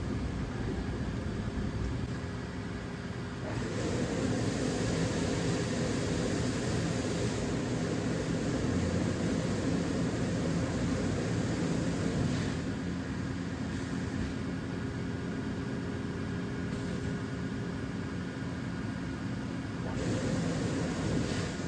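DVF 5000 5-axis CNC machining centre running, a steady machine hum with held tones and a hiss. It gets louder and hissier about three and a half seconds in, and shifts again shortly before the end.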